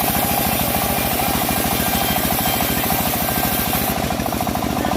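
Engine of a home-built bandsaw mill running steadily with a fast, even chugging, while the mill saws teak; a high hiss over it drops away about four seconds in.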